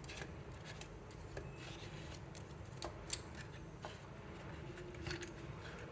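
Quiet handling noise: a few light clicks and rubbing as a fidget spinner is put back into its box, the clearest clicks a little under 3 s in and around 5 s in.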